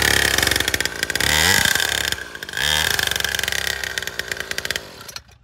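Small 49cc two-stroke petrol engine of a kids' pocket dirt bike running with a fast, buzzy beat, revved in two short blips, then stopping abruptly near the end.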